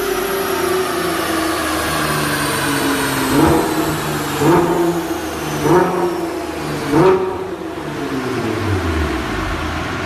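Nissan GT-R R35 Nismo's twin-turbo V6 through an ARMYTRIX valvetronic exhaust: the engine note falls slowly, then four quick throttle blips about a second apart, then the revs sink back to a low idle rumble.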